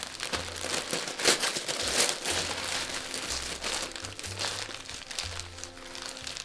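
Newspaper gift wrap crinkling and tearing in quick crackles as a present is unwrapped, busiest in the first couple of seconds, over background music with a low stepping bass line.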